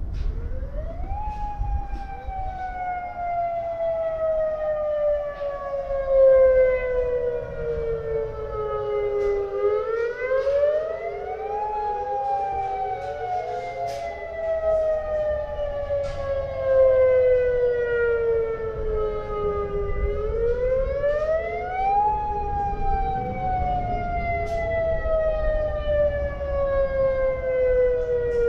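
Federal Signal Modulator electronic speaker-array siren sounding its full-volume warning tone. The pitch climbs quickly, then glides slowly down for about nine seconds before climbing again, three times over, with a fainter delayed copy of the tone trailing each glide. This is the public alert for the nuclear power station, sounded in its annual siren test.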